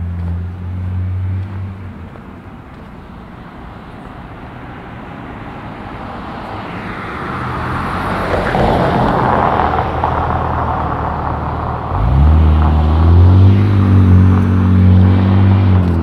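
A truck passes close by: a low engine hum, then tyre noise swelling to a peak about halfway through and fading. Near the end a loud, low engine rumble starts, rises in pitch and then holds steady.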